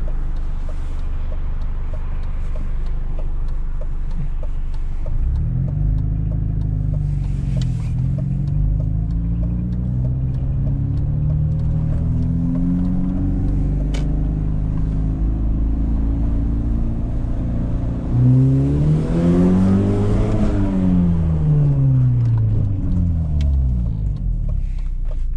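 BMW E46 320i's straight-six running through a loud exhaust while driving, the engine note climbing and falling as it pulls through the revs and shifts. About two-thirds of the way in it revs up hard, then the pitch drops away again.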